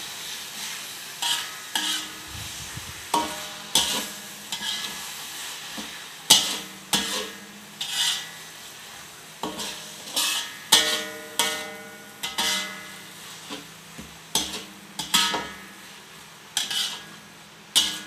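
Beef rendang being stirred in a pot: a utensil knocks and scrapes against the pot about once a second, each knock ringing briefly, over a faint sizzle.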